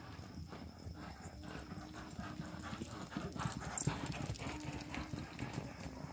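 Paso fino colt's hooves beating a quick, even footfall on a packed dirt and straw floor, louder for a moment as the horse passes close about halfway through.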